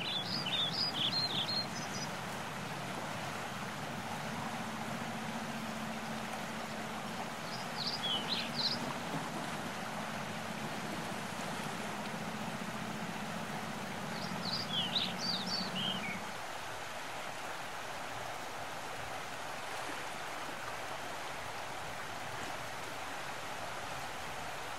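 Steady wash of outdoor noise with three short bursts of high bird chirps: one at the start, one about a third of the way through, one past the middle. A faint low hum underneath stops about two-thirds of the way through.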